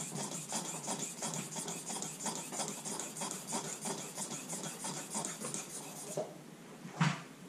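A steel utility-knife blade in a holder being ground back and forth on the fine side of a Norton Crystolon silicon-carbide sharpening stone, in quick, even rasping strokes, laying the bevel's shoulder back at a lower angle. The strokes stop about six seconds in, and a short sharp sound follows about a second later.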